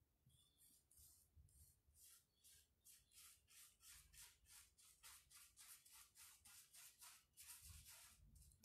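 Faint, quick scrubbing of a paintbrush on rough, rustic wood, about four short strokes a second, working watered-down PVA paint into the grain so it soaks in.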